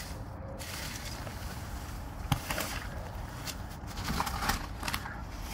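Rubbish rustling and shifting inside a large commercial waste bin as someone piles it up underfoot to climb out, with a single sharp knock about two seconds in and denser crackling near the end.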